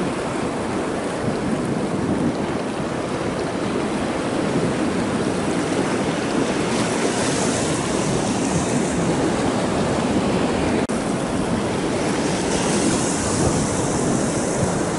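Ocean surf breaking and washing over rocks, a steady rush of water with the hiss of foam swelling twice, about seven and thirteen seconds in.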